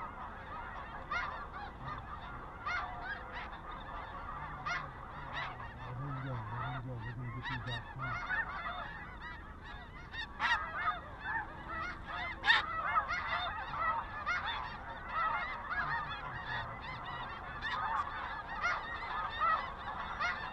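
Snow goose calling: many high yelps overlapping in a dense, constant chorus, with a couple of sharper, louder clicks about ten and twelve seconds in.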